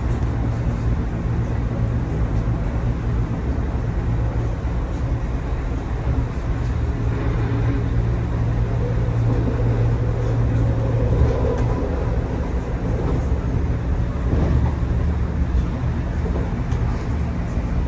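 DB Class 425 electric multiple unit running, heard from on board: a steady low hum from the traction equipment over the rumble of the wheels on the rails, with a faint whining tone rising and falling about halfway through.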